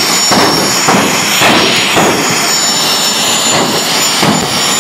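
Drag racing cars' engines running loud at the starting line, surging again and again over a steady high whine.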